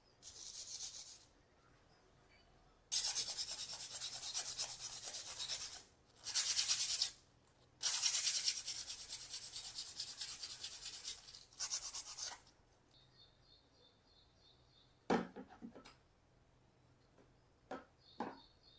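Fast back-and-forth sanding or scrubbing strokes on a rusty bicycle part, in several spells of a few seconds each. After that come a single sharp knock and two light clicks. A faint high chirping runs under the later part.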